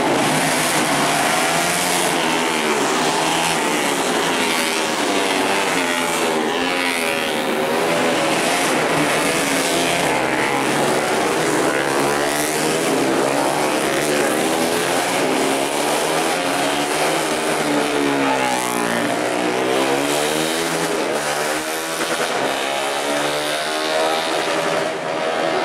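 Several 150 cc four-stroke underbone racing motorcycles lapping a circuit at full throttle, their engine notes overlapping. The pitch climbs and falls over and over as the bikes accelerate out of corners and slow into them.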